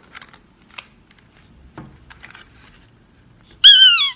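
Light plastic clicks as a toy dog's squeaker is handled, then near the end the squeaker bellows (the little squeaky bag) squeezed into one loud squeak that falls in pitch.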